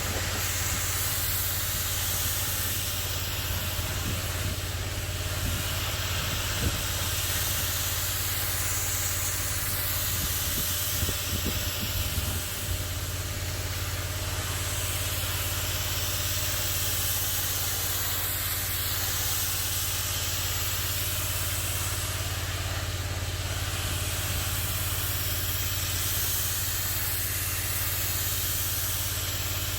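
Pressure washer running: a steady engine hum under the hiss of the water jet. The hiss swells and fades every few seconds.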